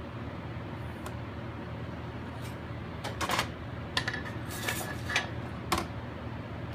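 Light metallic clinks and short scrapes as a metal square is shifted and set down on a sheet of sheet metal while layout lines are drawn across it, a few early on and a cluster of sharper ones in the second half, one ringing briefly. A steady low hum runs underneath.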